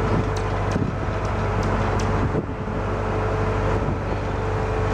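Engine of a rail wiring train running steadily, a low hum with a held tone. Light regular clicks, about two or three a second, sound over it in the first two seconds.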